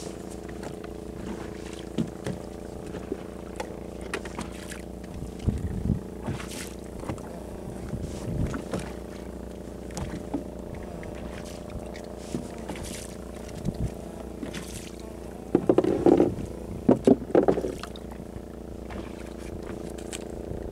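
Small fishing boat's engine running at a steady idle, with scattered knocks and bumps in the boat, and a short run of louder thumps and clatter about sixteen seconds in.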